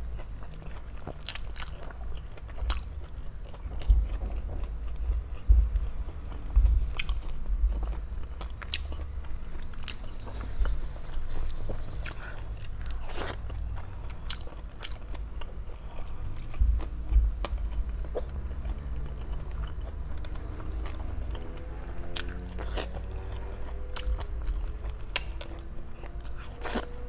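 Close-miked mukbang eating: steady chewing with sharp crunches at irregular intervals from biting into crispy lechon kawali (deep-fried pork belly).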